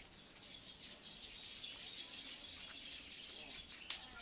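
Faint chirping of many small birds, with a single sharp click near the end.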